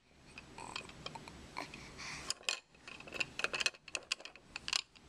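Irregular light clicks and taps, a few scattered at first and then a quick, dense run from about halfway through.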